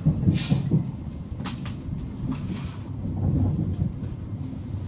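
Class 700 'Desiro City' electric multiple unit running, heard from inside the passenger saloon: a steady low rumble with a few sharp knocks and rattles in the first couple of seconds.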